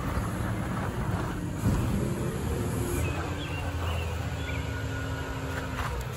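Automated recycling truck's diesel engine running down the street, a steady low rumble.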